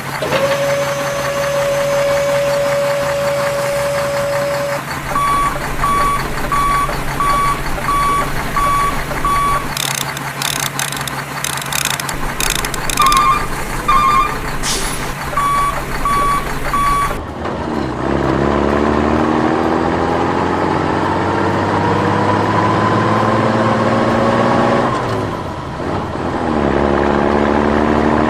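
Truck sound effects: a steady horn-like tone held for about five seconds, then a run of evenly spaced reversing beeps with some clicks, and, from just past halfway, an engine revving up in two long rising sweeps.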